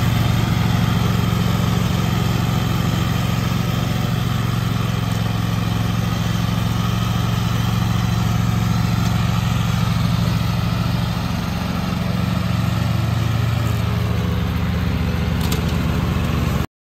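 Zero-turn riding lawn mower's engine running steadily while it mows grass, a loud, even drone with a low hum. It cuts off abruptly near the end.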